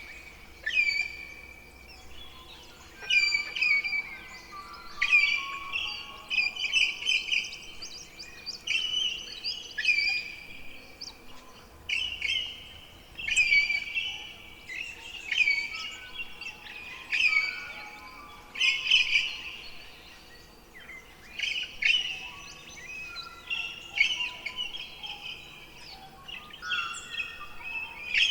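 Bird song: short, loud chirping phrases repeated every second or two, with quick gliding notes.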